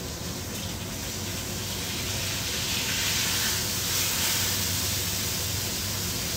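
Kitchen tap running into a sink as hands are rinsed under it, getting louder about two seconds in, over the steady sizzle of halibut pan-roasting.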